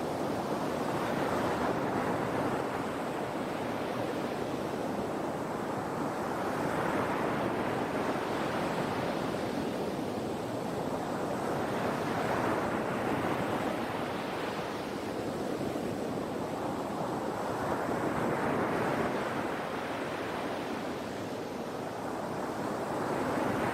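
Sea waves breaking and washing onto the shore. The surf swells and ebbs in slow surges about every five to six seconds.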